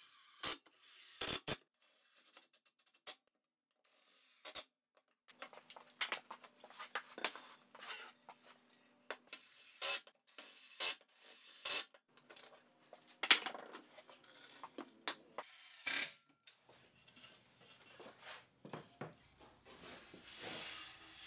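Cordless drill-driver driving pocket-hole screws through a mahogany apron into a table leg in a few short runs, mixed with many sharp clicks and knocks of clamps and parts being handled.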